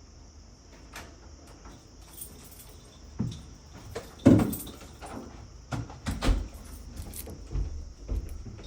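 Knocks and thumps of a door and footsteps, the loudest thud about four seconds in, over a steady high hiss.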